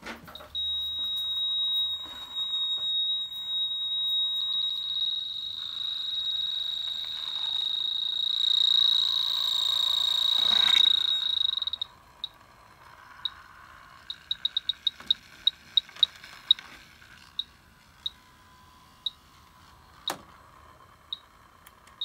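Electronic refrigerant leak detector alarming at a refrigerant leak: a continuous high beep that swells for about twelve seconds, then breaks into separate beeps, rapid at first and then sparser, as the refrigerant it senses thins out. A single click near the end.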